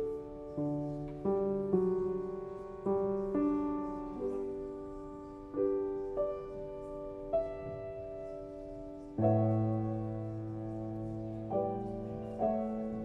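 Slow solo piano music: single notes and chords struck about once a second and left to ring and fade, with a fuller chord and deep bass note held from about nine seconds in.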